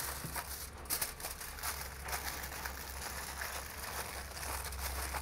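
Aluminium foil crinkling in irregular light crackles as hands fold and press it around the rib bones of a rack of lamb, over a low steady hum.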